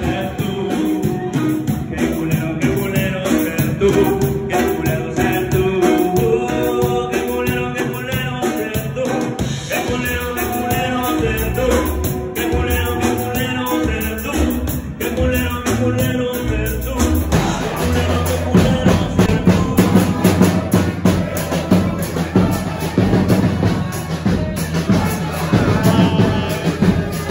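Band music with singing, saxophone and guitars. About 17 seconds in it cuts abruptly to a louder, bass-heavier passage.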